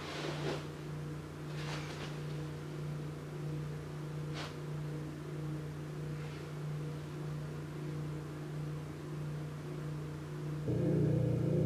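A steady low hum or drone with a few faint rustles over it, growing louder and fuller about a second before the end.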